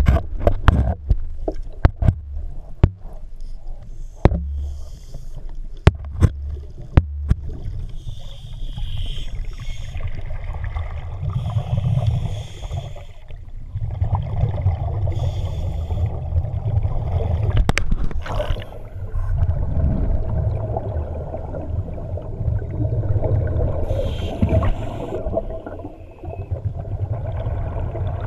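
Underwater sound of a scuba diver finning along: a muffled low rumble of water with sharp clicks in the first several seconds, then a hissing burst of exhaled regulator bubbles every few seconds.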